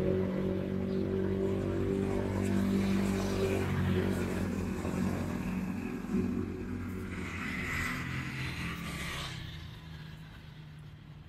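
Street traffic: a motor vehicle's engine runs close by with a steady low hum, fading after about six seconds. A brief rushing noise of passing traffic follows about eight seconds in.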